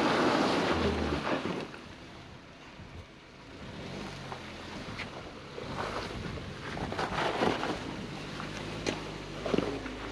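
Wind buffeting the microphone, loudest in the first second or two, over a Suzuki Jimny JB74's 1.5-litre four-cylinder engine running slowly while it crawls over rocks, with scattered clicks and crunches in the second half.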